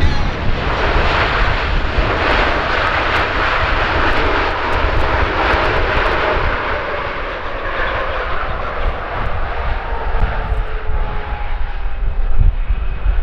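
A Boeing 777-300ER's GE90 jet engines during the landing rollout: a loud, steady rush of engine noise that eases after about seven seconds, as a faint falling whine comes through while the engines spool down.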